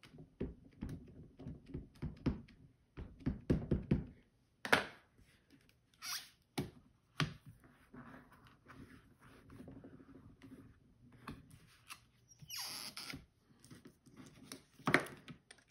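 An ink pad tapped quickly again and again against a stamp on the clear plastic door of a stamp positioner, then scattered clicks and knocks as the positioner and the cardstock are handled. A short scraping rub of paper sliding comes about three quarters of the way through, and a sharper click near the end.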